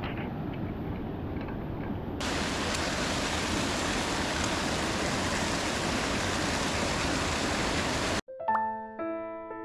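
Mountain stream water rushing over rocks. About two seconds in, it cuts to a louder, brighter rush of water that stops abruptly near the end, where soft piano music begins.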